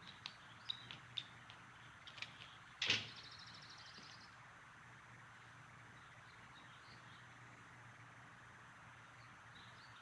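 Animated-film sound-effects track: a few light clicks and taps, then a sharp hit about three seconds in, followed at once by a fast, high ticking rattle lasting about a second. After that only a quiet, steady background ambience remains.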